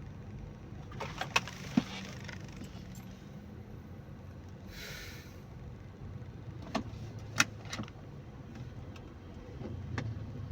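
Steady low hum of a car heard from inside the cabin, with a few sharp clicks and knocks scattered through and a short hiss about five seconds in.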